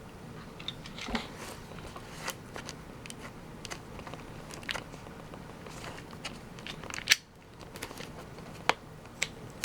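Packaging of a Pokémon mini tin display being opened by hand: plastic crackling and cardboard handling, with scattered clicks and a sharp snap about seven seconds in.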